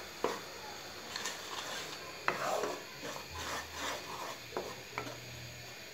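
Wooden spatula stirring and scraping a bubbling milk-and-sugar mixture around a non-stick pan, in repeated rubbing strokes with a few light clicks of the spatula against the pan.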